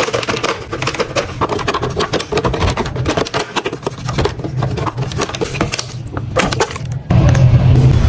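Toothbrush bristles scrubbing the plastic inside a washing machine's drain-pump filter housing in rapid rasping strokes. About seven seconds in, the scrubbing stops and a louder steady low hum abruptly takes over.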